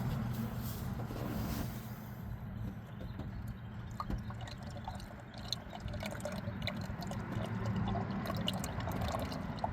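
Motor oil being poured from a quart bottle through a funnel into a pickup's engine, a steady glugging pour. Scattered light plastic clicks come in about halfway through.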